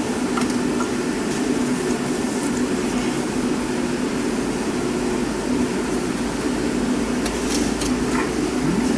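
Steady mechanical hum of a workshop, with a few faint clicks from hoses and parts being handled in an engine bay.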